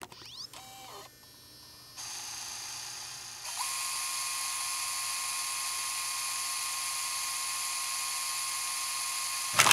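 Electronic sound-design sting for an animated logo: quick rising chirps, then a steady high-pitched whine with a thin tone in it that grows louder in two steps, ending in a sharp hit and a sudden cut-off.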